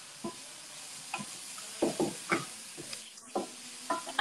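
Food sizzling in a hot frying pan, with a utensil scraping and knocking against the pan several times as it is stirred.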